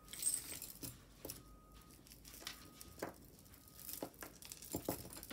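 Faint scattered clicks and rustles of costume jewelry being handled: chains, beads and a cord necklace pulled from a pile and worked at to free a tangle.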